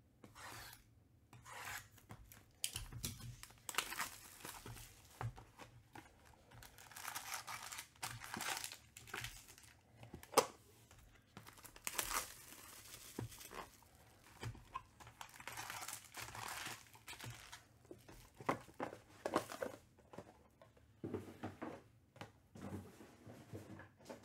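Trading-card pack wrappers being torn open and crinkled by hand: irregular short rips and crackles, one sharper sound about ten seconds in.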